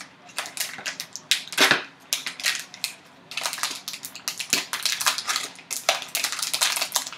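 Foil card-pack wrapper being torn open and crinkled by hand: a dense run of irregular crackles, loudest about a second and a half in and busiest in the second half.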